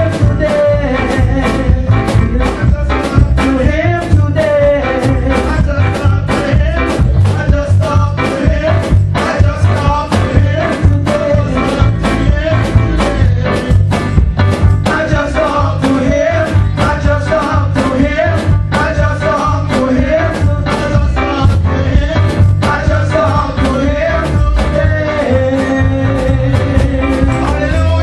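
Upbeat music with a steady drum beat and a singing voice.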